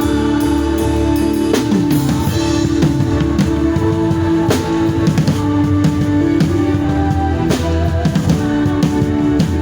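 Live band playing: held chords with a drum kit coming in about a second and a half in, bass drum and snare hits falling in an uneven groove over the sustained notes.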